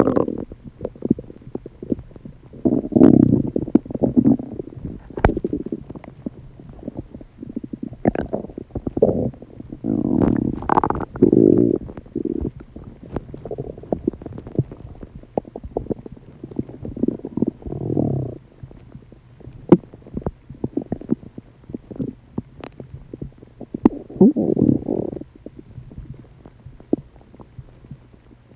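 Human stomach gurgling and rumbling: irregular bouts of bubbling, liquid gurgles every few seconds, with small sharp pops in between.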